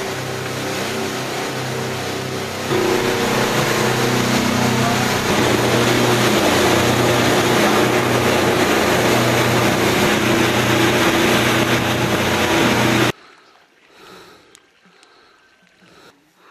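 Outboard motor driving a motorboat at speed: a steady engine drone with the rush of water and wind over it, growing louder about three and five seconds in. It cuts off abruptly near the end, leaving only faint outdoor sounds.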